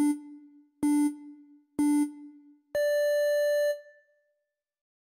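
Electronic countdown beeps: three short low tones about a second apart, then one longer tone an octave higher.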